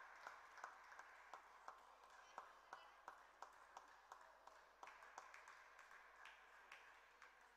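Faint, light clicks of a table tennis ball striking bat and table, coming evenly at about three a second.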